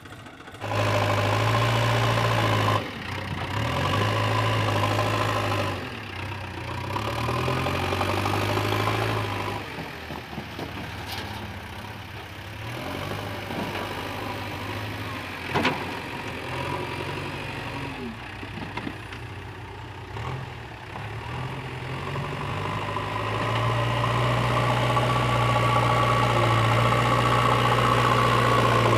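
Diesel engines of a JCB 3DX backhoe loader and a Swaraj 735 FE tractor running steadily, louder and quieter by turns. A single sharp clank comes about halfway through.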